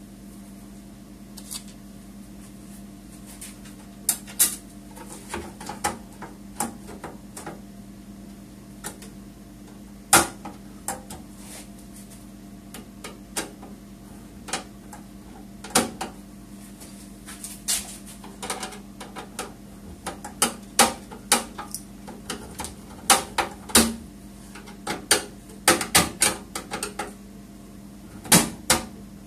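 Irregular clicks, taps and knocks of plastic and metal parts being handled and fitted inside a Dell Inspiron 620 desktop's open case, coming more often in the last ten seconds, over a steady low hum.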